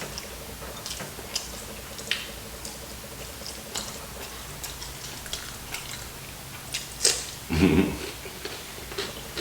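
Close-miked chewing and mouth smacks of a person eating, with scattered crisp clicks throughout. A brief low voiced sound comes about three-quarters of the way through.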